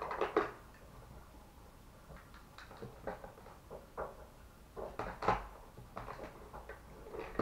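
Rummaging through a pile of makeup: palettes and cases knocking and clicking against each other in scattered, irregular knocks, with louder clatters at the start and about five seconds in.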